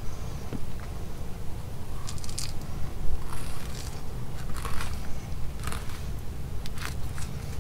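Fillet knife cutting along a flounder's backbone, a series of short scraping and crackling slices as the fillet is lifted off the bones, over a steady low rumble.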